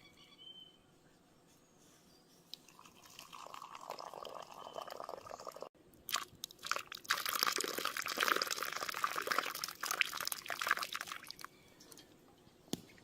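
Mushrooms frying in butter in a pan over a campfire, sizzling and crackling. It builds from about three seconds in, breaks off briefly, and is loudest through the middle.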